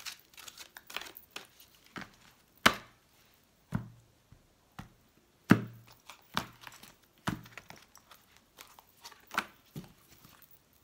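A deck of large oracle cards being shuffled by hand and set down on a table: irregular crisp snaps and taps of the card stock, a few much louder slaps with a dull knock.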